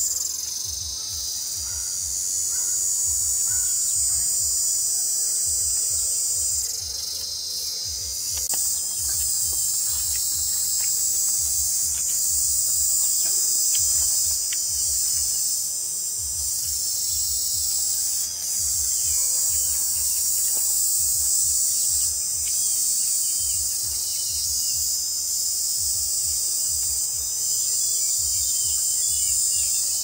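A chorus of insects buzzing in a steady, high-pitched drone that dips slightly a few times.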